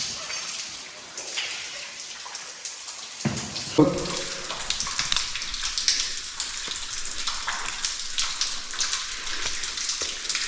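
Water of an underground waterfall splashing and pattering steadily down the cave wall, with a short voice sound about four seconds in.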